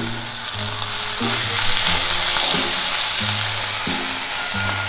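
Boiled rice sizzling in hot oil with chopped ginger in a kadhai as it is stirred in with a steel spoon, a steady frying hiss. Background music with a slow run of low notes plays under it.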